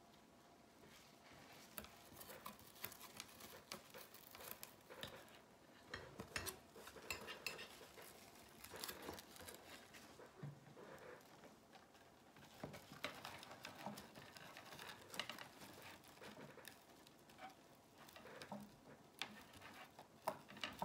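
Faint, irregular crinkling and rustling of red decorative mesh being looped and scrunched by hand, with scattered light clicks and taps from handling the wire wreath frame and pipe cleaners.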